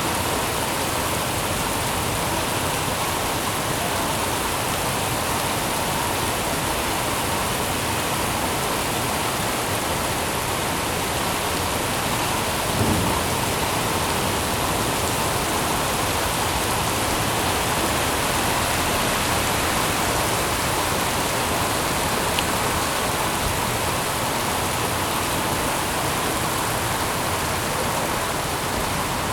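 Steady rain falling, an even hiss of drops without a break. A single brief low thump sounds a little before halfway.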